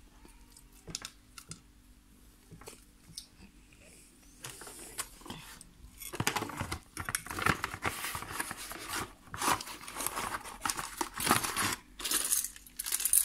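Hands handling the unpacked parts and their packaging. A few light clicks and taps come first. From about six seconds in there is busy rustling and scraping of the cardboard box and its wrapping, with small clinks among it.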